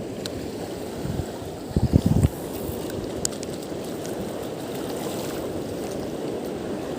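Steady wind and water noise at an estuary shore, with a brief louder low rumble about two seconds in and a couple of faint ticks.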